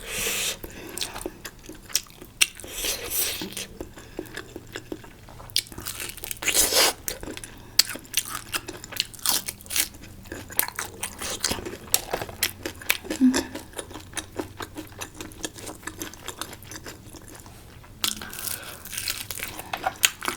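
A person eating close to the microphone: many small bites and chewing clicks, with a few louder, longer noisy bursts near the start, about three seconds in and about seven seconds in.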